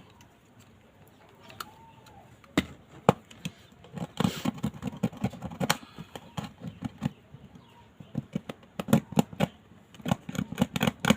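A small hand tool scraping and tapping on a phone's frame: scattered sharp clicks and short scraping strokes, turning into quick, dense clicking near the end.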